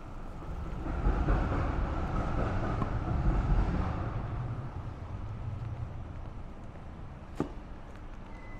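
A road vehicle passes close by in the street: its rumble swells about a second in and fades away over the next few seconds. A single sharp click sounds near the end.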